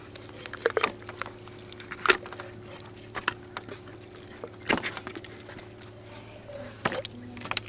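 Scattered soft knocks and wet slaps of a whole raw chicken being pressed and turned by hand on a wooden chopping block, over a steady low hum.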